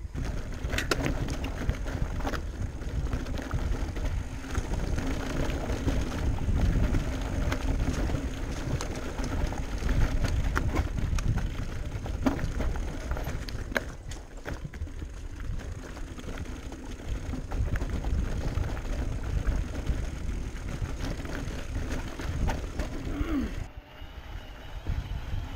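Electric mountain bike ridden over a rough dirt and rock trail: a steady rumble of tyres and wind on the microphone, with frequent knocks and rattles from the bike over rocks. The noise drops off suddenly near the end.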